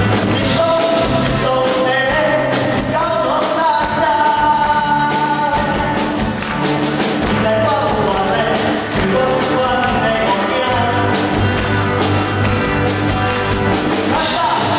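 Live rock band playing a song, with drums, bass, electric guitar and keyboard under a man singing the melody.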